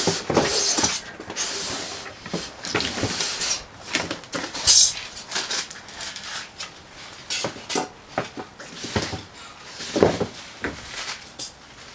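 Irregular clatter of sawmill parts and packaging being handled: scattered knocks and clunks, with a brief rustle about five seconds in.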